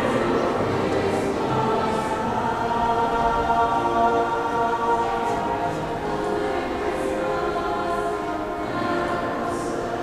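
High school mixed choir singing, holding long sustained chords that change every second or two.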